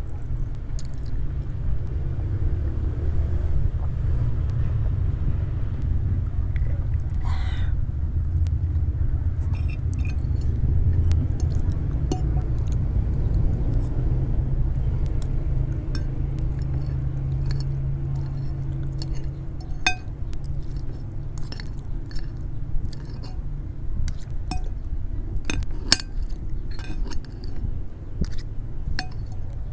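Metal spoon and fork clinking and scraping on a glass plate, the sharp clinks coming more often in the second half, over a steady low rumble.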